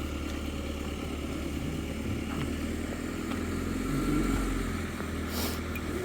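Street traffic: a motor vehicle's engine running steadily, growing louder about four seconds in as it passes.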